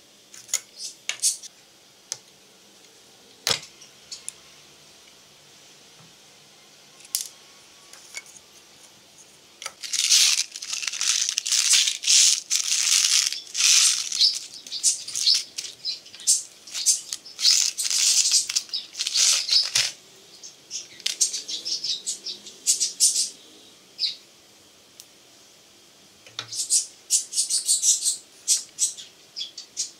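Small copper shotgun primers rattling and clicking against each other inside a clear plastic bottle as it is handled, in a long stretch of dense rattling. A few separate sharp clicks come before it, and a shorter burst of clicking comes near the end.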